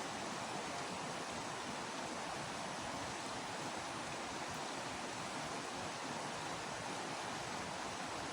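Steady rush of flowing stream water, an even noise without any distinct events.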